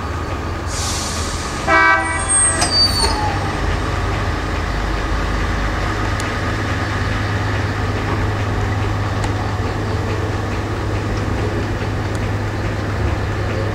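Diesel locomotive running with a steady low engine rumble as it moves slowly through the rail yard. A short horn toot sounds about two seconds in, followed by a few brief high-pitched tones.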